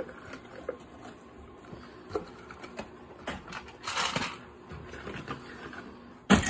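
Scattered light clicks and taps as a toddler handles a cardboard meal box and small toys against a plastic storage bin, with a rustle about four seconds in and a sharp knock near the end.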